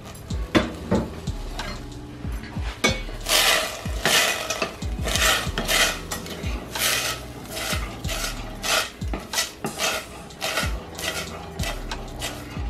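Metal spoon stirring kidney beans in a stainless steel saucepan, with irregular clinks and scrapes of the spoon against the pot.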